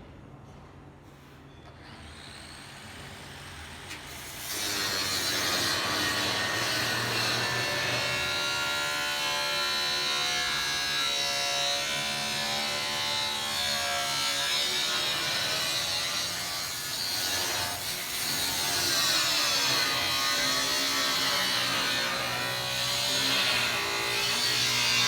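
Power tool cutting into the steel bow of a narrowboat, starting about four seconds in and running steadily with a wavering whine.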